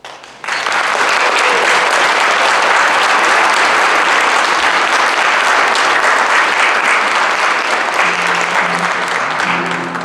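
Audience applauding, the clapping starting about half a second in and holding steady; near the end a low held musical note sounds under the clapping.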